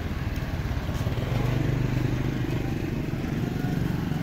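Motorbike engines running as they ride past on the street, one growing louder about a second and a half in.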